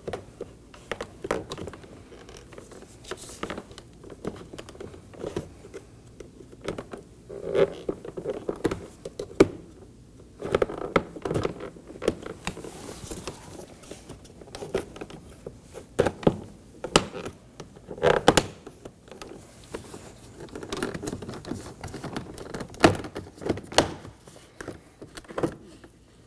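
A plastic trim tool prying the master window switch panel up out of a Nissan Maxima's front door trim: scattered clicks, knocks and scrapes of plastic clips letting go and the panel being handled.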